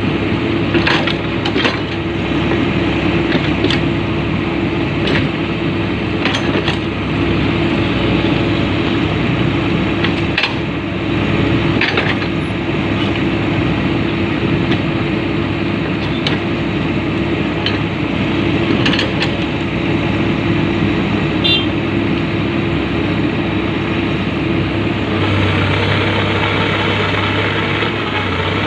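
Komatsu PC200 excavator's diesel engine running steadily, with scattered sharp knocks over it; the engine's deeper hum strengthens near the end.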